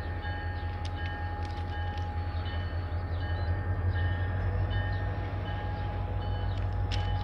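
Diesel locomotive engine running steadily with a low drone, heard close from atop its hood, with a few light clicks; the drone swells slightly about four seconds in.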